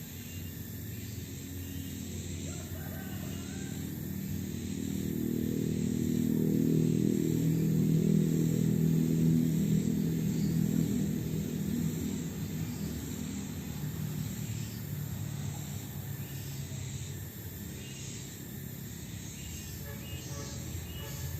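A motor vehicle passing: a steady engine hum that grows louder over several seconds, peaks, then slowly fades away.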